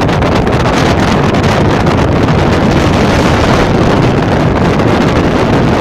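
Blizzard wind buffeting the microphone: a loud, steady rumbling hiss that does not let up.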